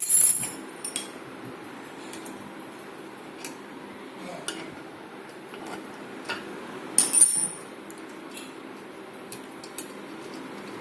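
Hand tools clinking and tapping on metal parts of a water heater, with a louder metallic clatter at the start and again about seven seconds in, over a steady low hum.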